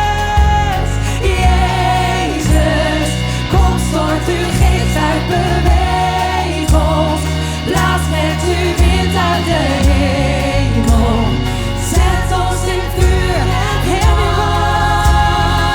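Live worship band music: a singer's voice wavers in runs over sustained bass notes and a steady beat, with no clear words.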